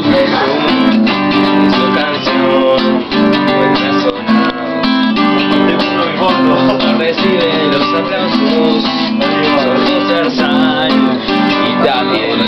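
Acoustic guitar being played, strummed chords that go on without a break.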